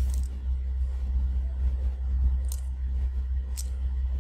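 Steady low background hum, with two faint clicks about two and a half and three and a half seconds in.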